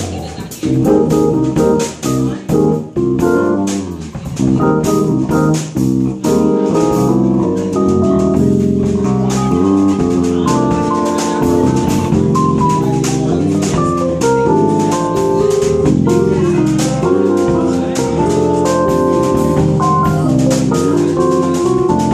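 Live instrumental band music: a Yamaha stage keyboard plays chords over an electric bass guitar, with a steady beat of sharp hits. For the first six seconds or so the playing comes in short, choppy stabs, then settles into held chords.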